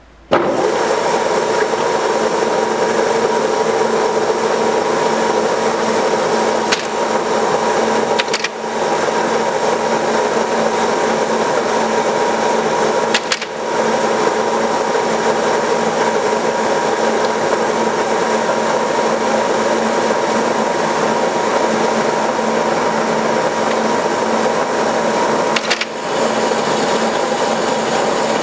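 1952 Brown & Sharpe automatic lathe running, machining small rivets: a loud, steady mechanical whir and clatter with a few steady tones in it. A few brief sharp clicks come with momentary dips in the noise, about seven, eight and a half, thirteen and a half, and twenty-six seconds in.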